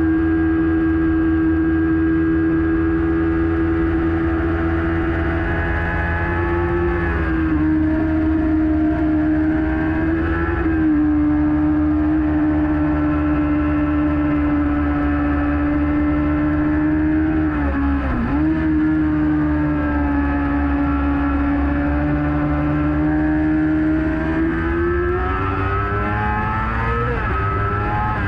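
Kawasaki ZX-6R inline-four race engine running hard at high revs, heard from a camera mounted on the bike. The engine note holds nearly steady with small shifts in pitch, dips briefly about two-thirds of the way through, then climbs near the end and falls sharply.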